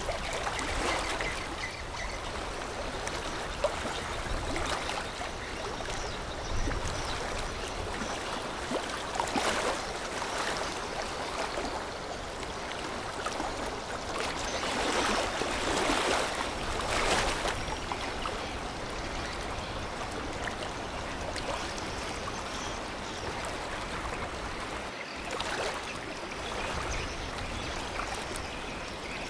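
River water washing and splashing, stirred up by a passing container ship's bow wave and wake. It is a steady rush that swells several times, loudest about halfway through.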